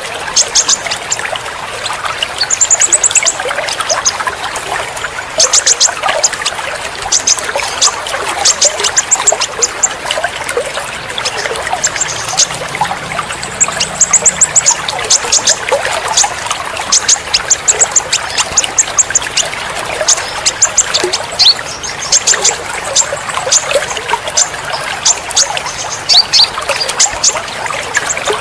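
Trickling water with quick runs of short, very high bird chirps over it, played as a therapy track to get caged songbirds singing again.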